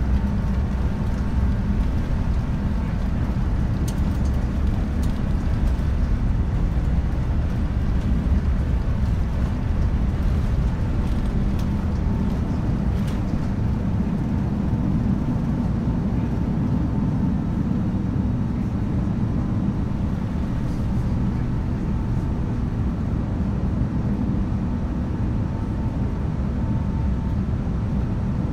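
Airbus A350-900 cabin noise on the takeoff roll and initial climb: the Rolls-Royce Trent XWB engines are running at takeoff thrust over a deep runway rumble, with a faint steady whine. The sound eases a little in the second half as the aircraft leaves the ground.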